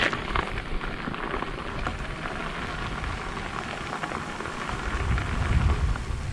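Bicycle tyres rolling over a gravel track, a steady crunch and crackle of small stones, with wind rumbling on the microphone that grows stronger about five seconds in.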